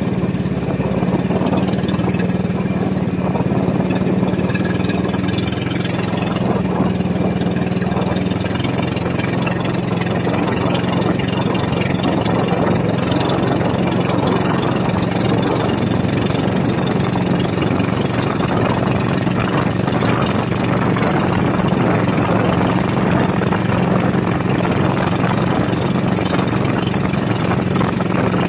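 Small engine of an outrigger fishing boat (bangka) running steadily at low trolling speed, with an even drone that holds without change.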